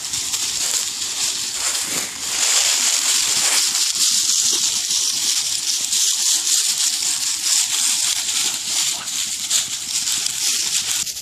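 Dry fallen leaves rustling and crunching steadily as dogs and a pig trample and nose through the leaf litter, louder from about two seconds in.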